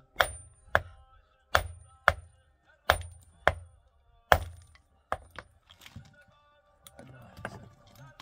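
Hammer blows striking a large stone block: sharp cracks with a brief ring, about seven hard strikes in the first four and a half seconds, mostly in pairs about half a second apart, then a few lighter knocks.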